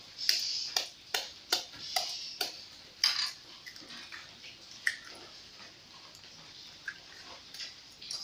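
A hen's egg tapped against a stainless steel bowl, about six sharp taps over the first three seconds, then the shell pried apart with a few faint clicks.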